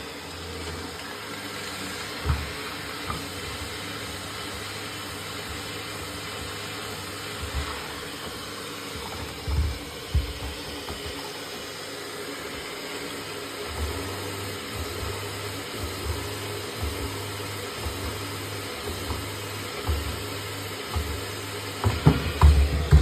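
Yadea Fairy10 robot vacuum and mop station running, a steady motor hum and hiss with occasional low thumps, several near the end.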